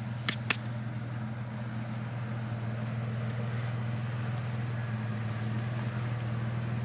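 An off-road 4x4's engine running steadily, a low even hum, with two sharp clicks about half a second in.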